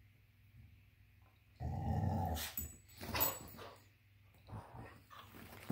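Carolina dog growling in play: one long growl about one and a half seconds in, then several shorter growls.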